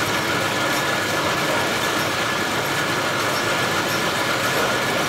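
Motorised automatic coir-spinning machines running: a steady mechanical whir with a faint high hum.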